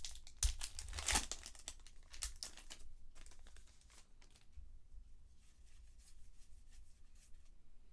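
Trading card packs and cards being handled: wrapper crinkling and cards rustling, loudest about a second in, then quieter scattered rustles.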